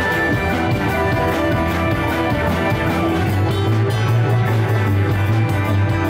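Live funk jam band playing: electric guitars, bass, drums and keyboards, with long held bass notes under a steady drum beat.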